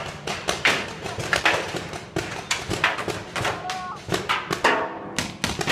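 Paintball markers firing, with irregular sharp pops several times a second and players' voices calling out between them.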